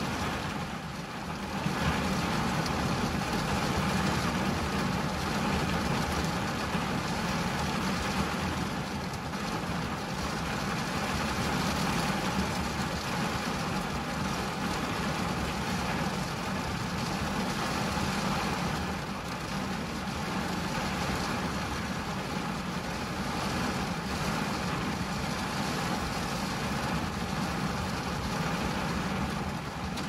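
Steady rain falling on a car's windshield and roof, heard from inside the car, with a low rumble underneath.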